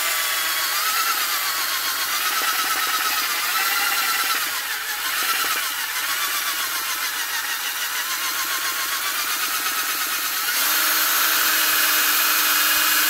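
Cordless drill spinning a metal turn-signal switch lever against a Scotch-Brite abrasive pad, polishing it: a continuous motor whine whose pitch wavers as the pad drags on the rod, over a scrubbing hiss. About ten and a half seconds in, the whine steadies to an even pitch.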